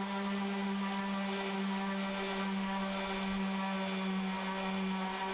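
Ryobi random orbit sander running steadily as it sands a wooden tabletop: a constant motor hum.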